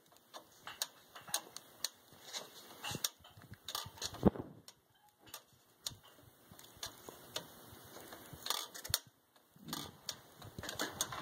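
Irregular clicks and taps from metal parts being handled inside a machine, with one sharper knock about four seconds in.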